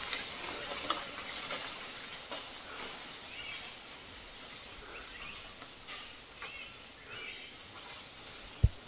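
Forest ambience: a steady hiss of background noise with a few short, faint chirps scattered through the middle, and one sharp low thump near the end.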